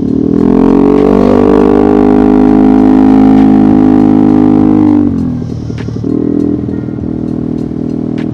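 Yamaha XMAX scooter's single-cylinder engine accelerating under throttle, its note rising briefly and then holding steady, before the throttle is rolled off about five seconds in and it drops to a lower, rougher note.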